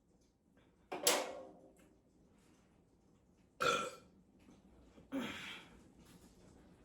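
A person burping three times, about two seconds apart. The first burp is the loudest and longest.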